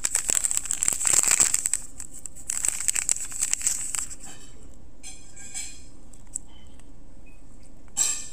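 Plastic wrapper of a small Wasa sesame crispbread pack crinkling as it is handled and turned over: two long spells of crackly rustling in the first four seconds, fainter rustles after, and a short crinkle near the end.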